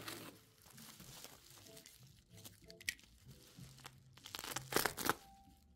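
Plastic stretch wrap crinkling and rustling as it is handled and pulled around wrapped objects, with the loudest crinkles near the end.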